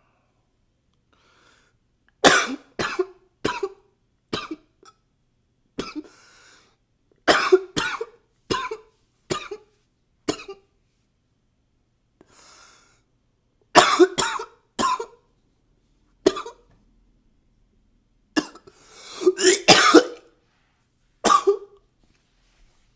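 A man coughing in repeated fits of three to six quick coughs, with audible breaths drawn in between the fits.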